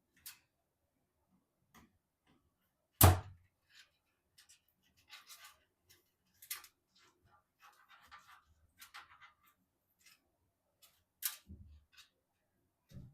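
Hands handling PC components and parts: scattered light clicks and rustling, with a sharp knock about three seconds in and another near the end.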